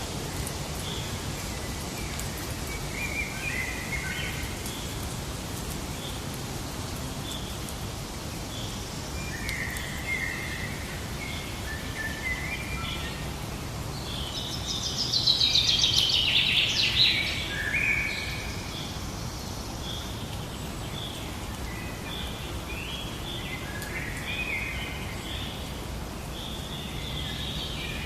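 Several birds singing in short scattered phrases over a steady hiss of outdoor ambience, with a louder, busier stretch of song a little past halfway.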